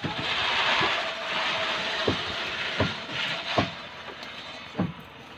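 Steady rushing noise with a faint hum, over about six scattered sharp knocks and taps from work on a wooden boat; the rushing fades toward the end.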